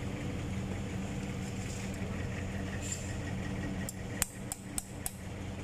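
Several sharp metallic clinks in quick succession, about four seconds in, from a wrench working a bolt on a boom truck's steel winch drum, over a steady low mechanical hum.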